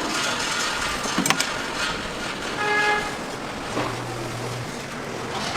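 Street traffic noise with a short, pitched vehicle horn toot about halfway through.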